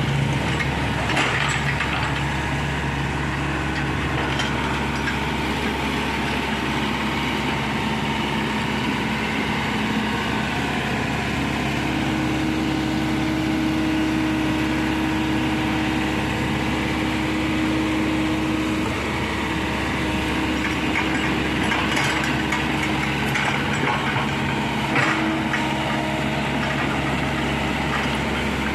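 Komatsu PC75 excavator's diesel engine running steadily as the machine works, its tone shifting in pitch now and then, with a few short clanks about a second in and again near the end.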